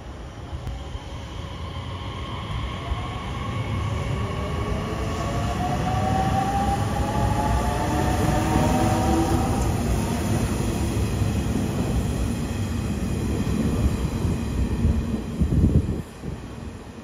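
Nishitetsu 6050 series electric commuter train pulling away from a station platform: a rising whine from its motors climbs over the rumble of wheels on rail as it accelerates. The rumble grows loud and then drops off sharply near the end.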